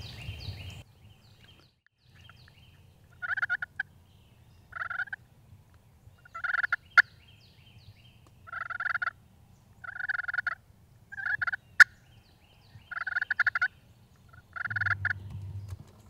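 Turkey gobbling: eight short rattling gobbles, about one every one and a half to two seconds. Two sharp clicks come in between.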